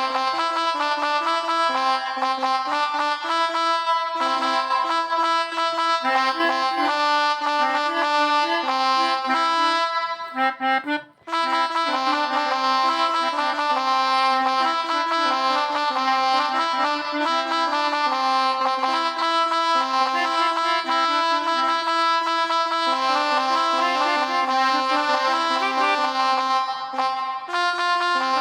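Phone pianika (melodica) app playing held reedy notes, several sounding together and stepping from pitch to pitch, in the style of a telolet bus-horn tune. The notes break off briefly about eleven seconds in.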